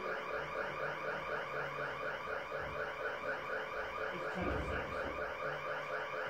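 A steady electronic warbling tone repeating several times a second, like an alarm, with a brief low rush about four and a half seconds in.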